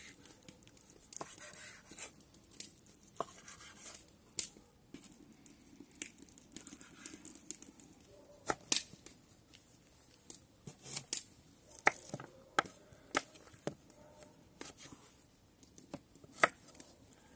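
Chef's knife cutting raw pork into chunks on a wooden cutting board: soft slicing through the meat, broken by irregular sharp knocks as the blade strikes the board. Near the end the knife cuts through a carrot.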